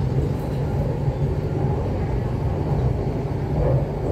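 Steady low rumble of an MTR Kwun Tong Line C-Train heard from inside the passenger cabin.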